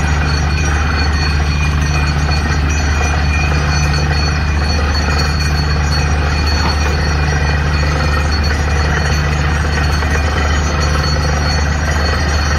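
Truck-mounted DTH borewell drilling rig running at full drilling: a loud, even machine drone with a deep hum underneath.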